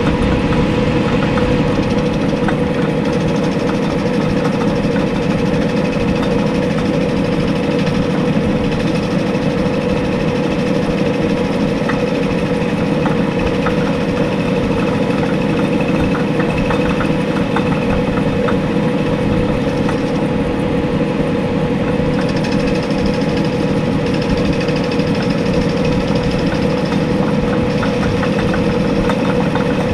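Small metal lathe running steadily with a constant motor and drive hum, machining a 43 mm fork bushing down to width.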